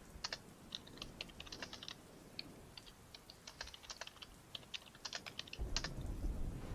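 Typing on a computer keyboard: quick, irregular key clicks in bursts. Near the end a low rumble of thunder with rain comes up underneath.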